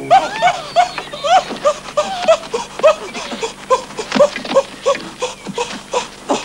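A chorus of ape-like vocal calls from fur-clad primitive humans: many short hoots and yelps, each rising and falling in pitch, about two or three a second, with sharp clicks and knocks among them.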